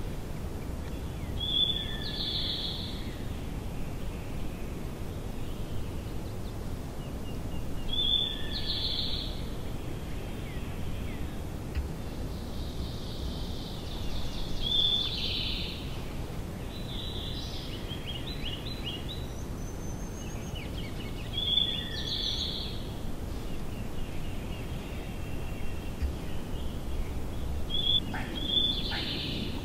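A songbird singing a short high phrase that repeats about every six or seven seconds, over steady low outdoor background noise.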